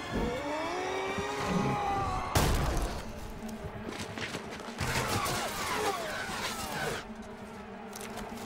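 Film battle sound: men yelling battle cries over a din of fighting, with the sound changing abruptly a few times as the shots cut.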